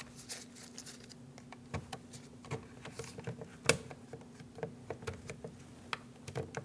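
Scattered light plastic clicks and taps as a power window switch is unclipped and worked free of its door trim bezel, with one sharper click a little past the middle.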